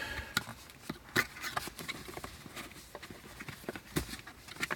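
Irregular small clicks, knocks and handling noise as a package is being opened by hand.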